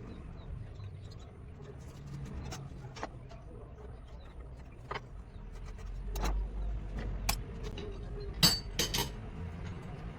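Workshop noise around a wood lathe: a low rumble under scattered clicks and clinks, with a few sharp knocks close together about three-quarters of the way through.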